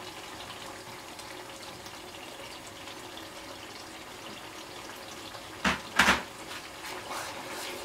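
Thick meat stew simmering in butter on raised heat, a steady faint sizzle. A little past halfway, two sharp knocks come a split second apart.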